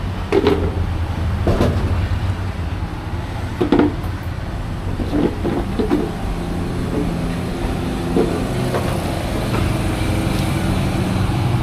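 Street traffic: a steady low hum of vehicle engines from the road, with a few brief louder sounds over it in the first half.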